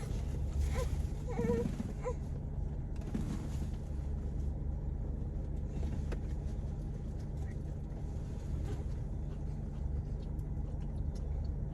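Steady low hum of a running car, heard from inside the cabin, with a few brief higher sounds in the first two seconds.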